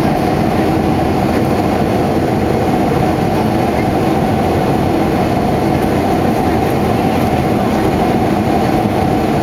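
Steady cabin drone of a Boeing 757-200 in flight, the noise of its Rolls-Royce RB211 turbofan engines and the rushing airflow heard inside the cabin at a window seat beside the engine. The sound is an even, unbroken rumble with most of its weight in the low and middle range.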